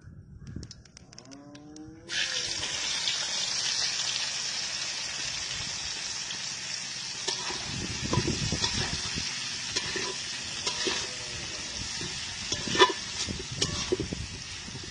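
Sliced onions hitting hot oil in a large metal bowl: a steady sizzle starts suddenly about two seconds in. From about halfway, a metal spatula scrapes and knocks against the bowl as the onions are stirred, with one sharp knock near the end.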